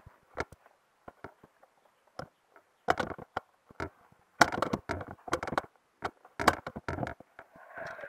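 A plastic jar being handled close by: scattered taps and clicks, with short bursts of knocking and scraping about three seconds in and again around five and six and a half seconds in.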